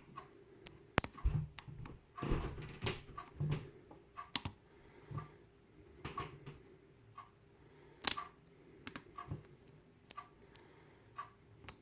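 Hook pick working the pins inside a five-pin ABUS padlock, with irregular small clicks and taps as the pins are lifted and set one at a time.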